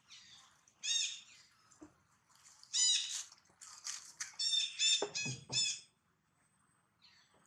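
High-pitched squealing animal calls in short bursts, about one second in, around three seconds in, and a quick run of four or five between about four and a half and six seconds in. The later ones are the loudest. The calls stop about six seconds in.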